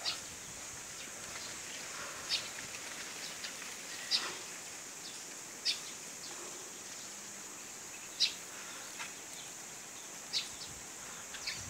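Outdoor rural ambience: a steady high-pitched insect hiss with short, sharp bird chirps about every two seconds.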